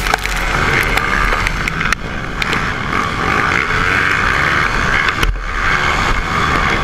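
Pit bike engine running with wind and rattle on an action camera's microphone, a steady noisy sound with small clicks and knocks.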